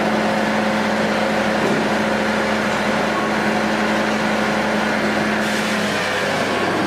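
A firewood processor's engine running steadily, a constant drone with a steady hum and no cutting strokes or impacts.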